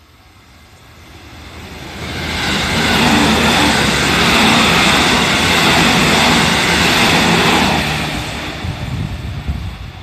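JR 313 series electric multiple unit passing close by on the track: its rumble and rush build over about two seconds, hold loud for several seconds, then fade away.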